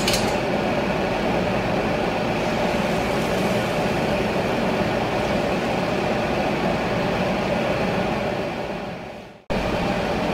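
Hot oil sizzling steadily as rosette cookies deep-fry on their irons, with a low steady hum underneath. The sound fades away about nine seconds in and cuts back in abruptly.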